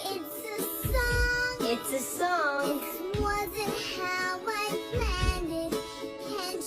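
Music with a high, child-like singing voice over a deep bass thump that comes about every two seconds.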